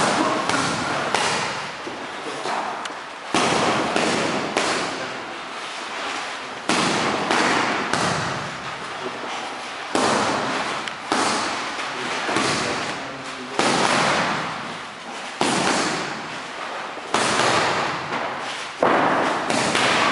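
Boxing gloves smacking into focus mitts in quick combinations: bursts of several sharp pops, a new flurry every couple of seconds, echoing in the room.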